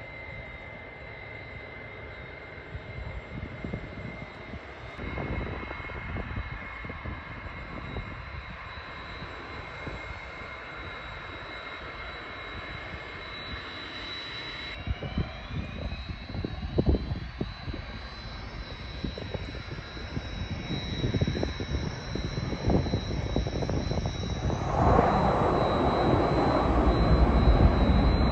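Jet aircraft engines whining steadily, the whine sliding up in pitch about fourteen seconds in, then a much louder rush of jet noise from about twenty-five seconds in as the aircraft comes close. Wind gusts rumble on the microphone throughout.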